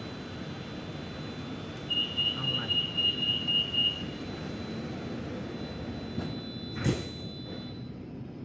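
MRT Blue Line metro train heard from inside the car, with a steady running rumble. About two seconds in, a high wavering tone sounds for about two seconds, and a single sharp clunk comes near the end.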